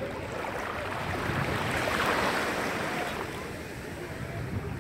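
Small sea waves lapping and washing through the shallows, swelling about two seconds in and then easing off.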